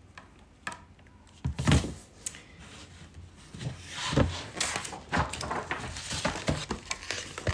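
A hardcover picture book being handled on a table: a few dull knocks as it is set down and its cover opened, then a run of rustling and flapping as the pages are turned.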